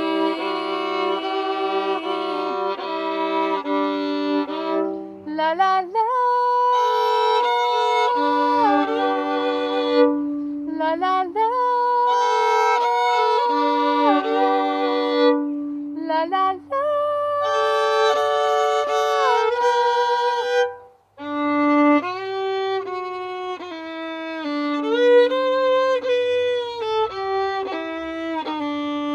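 Solo violin playing a slow bowed melody of held notes, often two notes sounding at once, with a short break about three-quarters of the way through.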